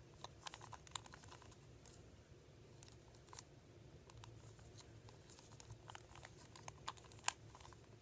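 A 2x2 Rubik's cube turned by hand: faint, irregular plastic clicks as its layers are rotated, one louder click near the end.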